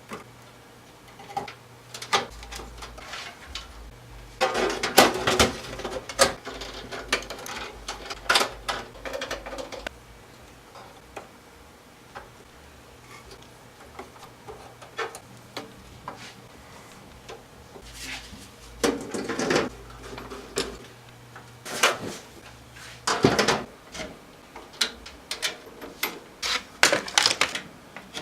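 Computer parts being handled: irregular clicks, knocks and short rattles of plastic and metal, with clusters of clatter in between quieter stretches, over a faint steady low hum.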